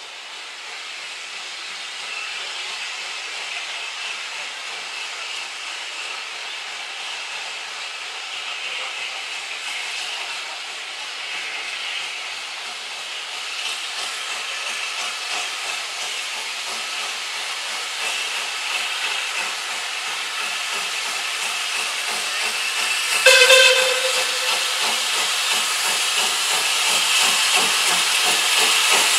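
Steam tank locomotive No. 419 working a passenger train as it approaches, its exhaust beats and steam hiss growing steadily louder. A short whistle blast sounds about three-quarters of the way through.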